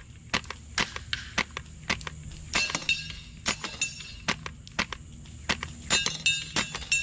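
Polarstar Kythera HPA airsoft rifle firing rapid single shots. The sharp pops are mixed with the clinks and short ringing of BBs striking targets and knocking them down.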